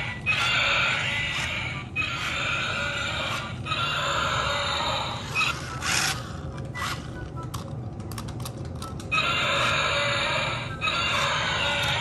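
Tinny recorded dinosaur roars and growls repeat one after another from the RC dinosaur monster truck's built-in speaker, over the low hum of its drive motors. In the middle a run of sharp clicks and rattles replaces the roars for a few seconds.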